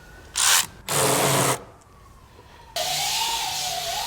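Power ratchet run in short bursts on the intake fasteners, three runs in all. The last run lasts about two seconds, with a wavering motor whine under the hiss.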